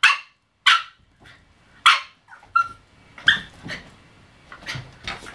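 Norfolk terrier puppy barking at its own reflection in a mirror: about seven short, high-pitched yips and barks at uneven intervals.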